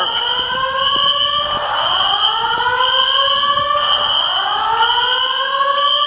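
Building fire alarm in activation: a whoop tone rising over about two seconds, repeating in overlapping waves, over a steady high-pitched tone that cuts out briefly every couple of seconds.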